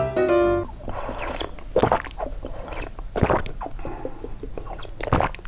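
A cat eating from a bowl, with irregular wet chewing and crunching clicks. A piano phrase ends about half a second in.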